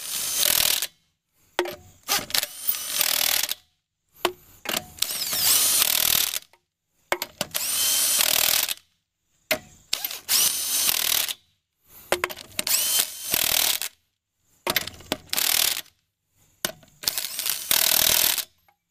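Milwaukee cordless impact wrench running lug nuts onto the wheel studs in about eight short bursts, one nut after another, with short pauses between. Many bursts open with a rising whine as the motor spins up.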